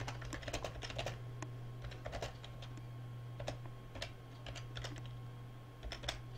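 Typing on a computer keyboard: uneven runs of quick key clicks, over a steady low hum.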